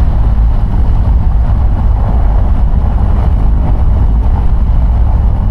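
Piper PA-28's piston engine running steadily at low power, a constant low rumble heard from inside the cockpit.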